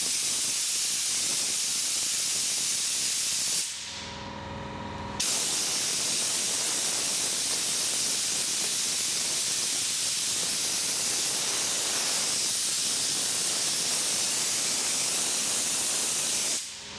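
Compressed air hissing steadily from a blow gun, blowing dust off car paint. It runs in two long blasts, stopping for about a second and a half around four seconds in.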